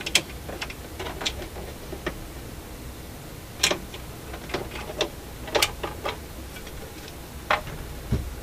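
Irregular sharp clicks and light knocks from a Dual 1228 turntable being handled: its platter and mechanism worked by hand, and the platter lifted off the deck. A dull thump near the end.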